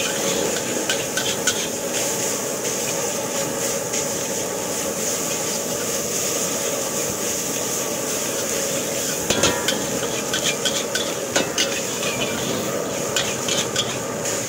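Fried rice sizzling in a hot black wok while a metal spatula scrapes and clacks against the pan as it is tossed and stirred. The clacks come in quick flurries, thickest about nine to ten seconds in and again near the end.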